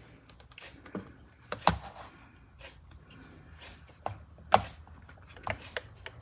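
Irregular clicks and knocks of hard objects being handled, about half a dozen, the loudest about one and a half seconds and four and a half seconds in.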